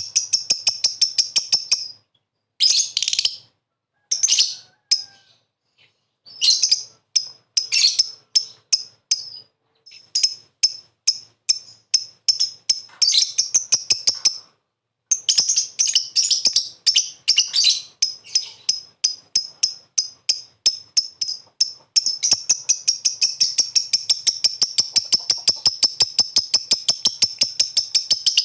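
Lovebird giving sharp, high-pitched chirps in rapid series, broken by short pauses, then running into a long, unbroken fast chatter near the end: the lovebird's 'ngekek' song.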